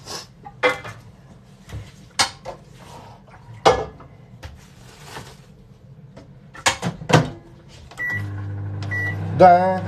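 Kitchen cupboard doors and items knocking and clicking several times. Near the end a microwave oven beeps twice and starts running with a steady hum.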